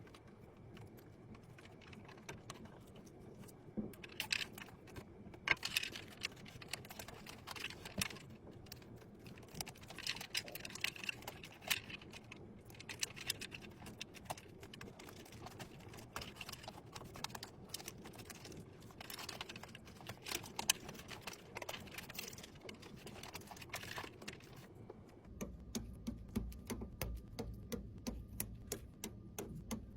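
Faint, irregular clicking and clattering of small hard parts. About 25 seconds in, a low hum and a fast, even ticking start.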